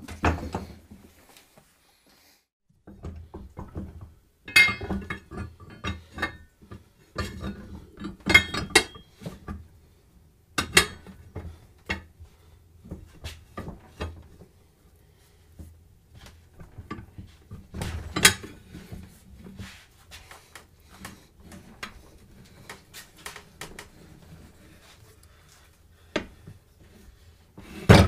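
Irregular metal clanks and knocks of a mini tire changer's steel mount/demount bar as it is levered around the wheel rim and center post, working a new tire's bead onto the rim. The clanks come at uneven intervals, several of them sharp and loud.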